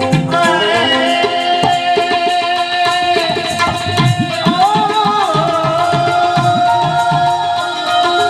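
Instrumental interlude of Gujarati devotional folk music: tabla playing a steady rhythm under a held melody line that bends in pitch about halfway through.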